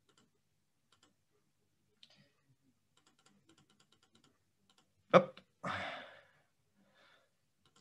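Faint scattered clicks of a computer mouse or keyboard. About five seconds in comes a short sharp burst, followed by half a second of breathy noise.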